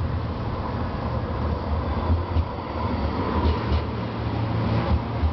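EuskoTran electric tram rolling past close by, its running noise a steady rumble as it slows into a stop.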